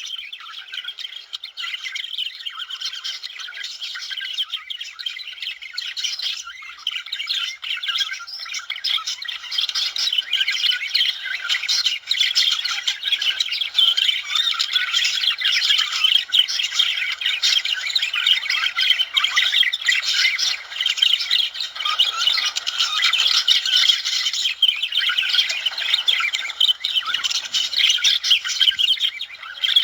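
Budgerigars warbling and chirping, a dense, rapid, continuous chatter of high squeaky notes, growing a little louder after the first third.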